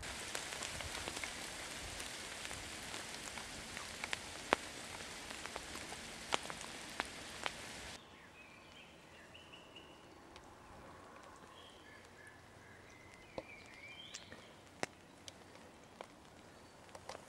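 Rain pattering with scattered sharp drop clicks. About eight seconds in it cuts to quieter outdoor ambience with birds chirping faintly.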